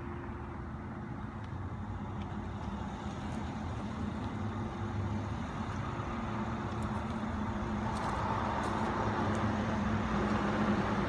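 Road and engine noise of a slowly moving car, heard from inside the cabin: a steady rumble with a low hum, growing a little louder toward the end.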